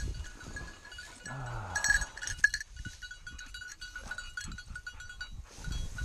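German shorthaired pointer being handled in dry grass: rustling, and a short low falling vocal sound from the dog about a second and a half in.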